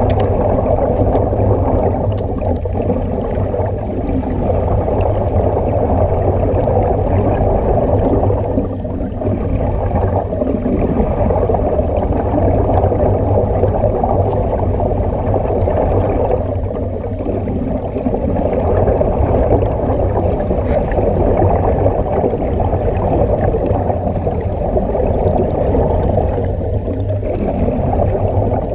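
Steady muffled underwater rumble with gurgling air bubbles, heard through a camera's waterproof housing.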